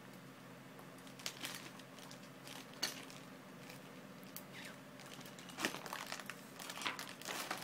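Faint clicks and rustling of small plastic parts handled by fingers, as a new cassette is fitted into an aircraft seat's headset jack housing. The louder clicks come about a second in, near three seconds, and several near the end.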